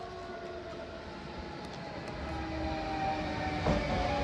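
A DSB Siemens Vectron electric locomotive hauling Twindexx double-deck coaches arrives into the station, slowing. Its electric drive whines in several steady tones that shift in pitch over a low rumble, growing louder as it comes closer. There is a single sharp clack about three and a half seconds in.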